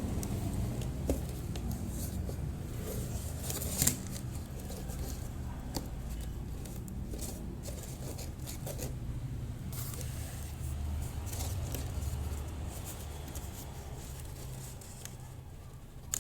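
Cardboard being cut and handled: irregular scraping and tearing strokes with a couple of sharp clicks, over a steady low hum.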